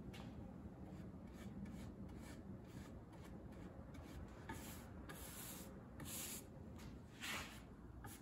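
Paintbrush strokes spreading spar urethane along a painted 2x4: faint repeated swishes of bristles on wood, the strokes louder in the second half.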